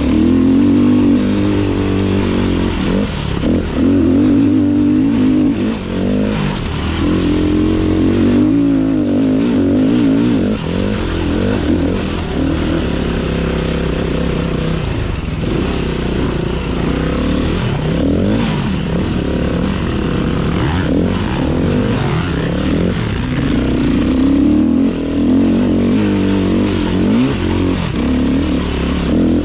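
KTM 500 EXC enduro motorcycle's single-cylinder four-stroke engine working hard off-road, its pitch rising and falling again and again as the throttle is opened and shut.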